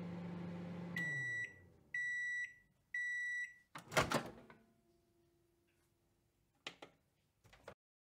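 Microwave oven running with a low hum that winds down about a second in, then three long beeps a second apart signalling the end of the cook. The door latch then clunks open, followed later by two light clicks.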